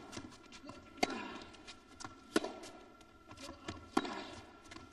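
Tennis rally: three sharp racket strikes on the ball about a second and a half apart, with lighter ball bounces between them, echoing in an indoor arena.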